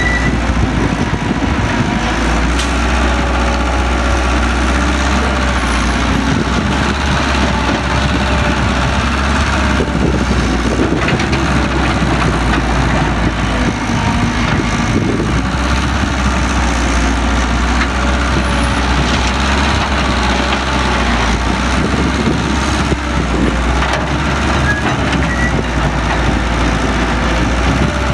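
Heavy diesel machinery running steadily at a loud level, with a faint tone that wavers up and down in pitch.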